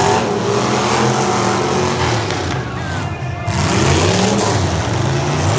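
Demolition derby cars' engines revving hard, several at once, their pitch rising and falling.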